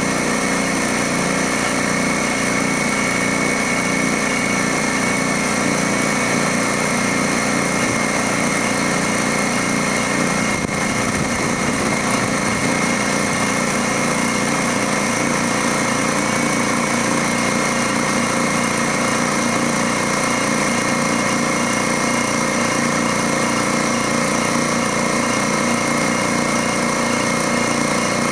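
DeWalt electric air compressor running steadily, its motor and pump building up pressure in the tank.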